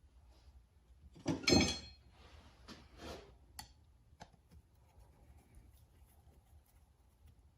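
Screwdriver and small metal parts handled on a workbench: a loud, brief clatter with a metallic ring about a second and a half in, then softer scraping and a few light clicks.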